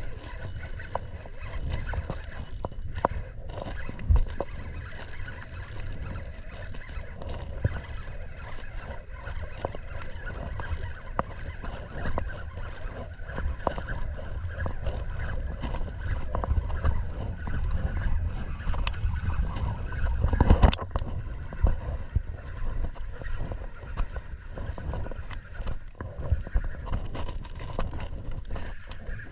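Wind rumbling on the microphone and water lapping around a fishing kayak, with scattered clicks and knocks of a spinning reel and rod being worked during a fight with a hooked fish. One louder knock comes about two-thirds of the way through.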